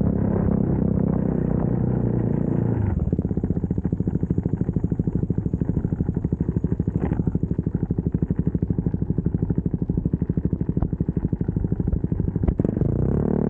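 CFMoto 300SS's single-cylinder engine running, then, about three seconds in, dropping to an even, rapid low pulse at low revs off the throttle as the motorcycle slows almost to a stop. A sharp click near the end.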